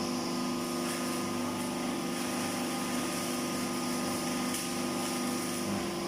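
Motorcycle wheel rim butt welding machine running with a steady hum and several constant tones over a mechanical whir.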